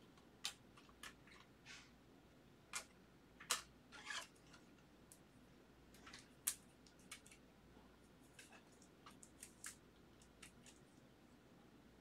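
Faint, scattered clicks and brief soft plastic rustles of trading cards being handled and slid into clear plastic sleeves and a rigid plastic toploader.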